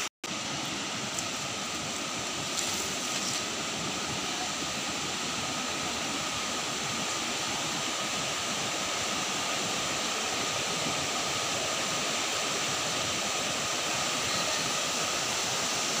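River water rushing over rocks at a small waterfall and rapids: a steady, even rush with no break in it.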